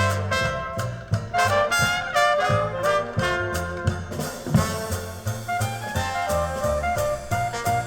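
Brass-led big-band jazz with a moving bass line and light percussion, played over hi-fi loudspeakers in a listening room and recorded from the listening chair with a four-microphone recorder.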